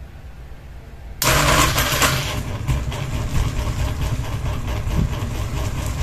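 Ceiling fan fitted with a single blade switched on about a second in, starting up with a sudden loud burst of noise, then running unbalanced: a steady low hum with a dense, irregular rattling and knocking from the wobble.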